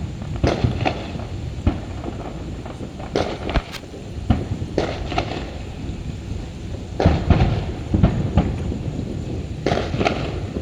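Fireworks shells bursting overhead: a dozen or so sharp bangs at irregular intervals, some in quick pairs, each with a ringing tail, the loudest cluster a little past the middle.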